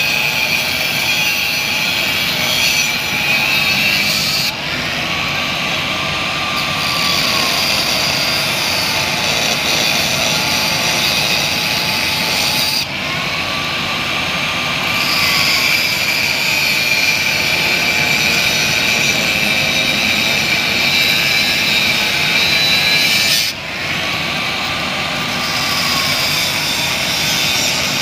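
Corded angle grinder with a thin cut-off disc cutting stainless-steel box-section pipe, a loud continuous grinding hiss over the motor's whine. Three times, the cutting noise drops for a moment and the motor's whine rises briefly before settling back as the disc bites again.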